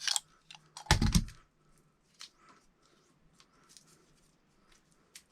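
Solid Romex wire being stripped by hand: short scraping and clicking as the insulation is cut and peeled off, with a louder knock about a second in and faint ticks after.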